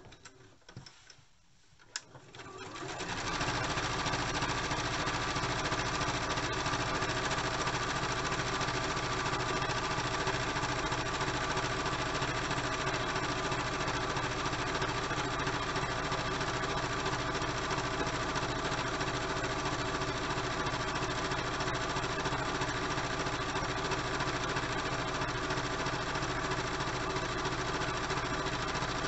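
Electric domestic sewing machine pausing briefly with a click, then starting up again about three seconds in and running steadily at an even speed as it stitches a seam through layered, quilted fabric. It stops right at the end.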